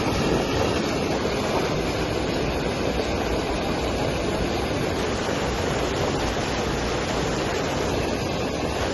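Turbulent white water rushing and churning steadily where a stream pours out of a concrete spillway into a rocky channel.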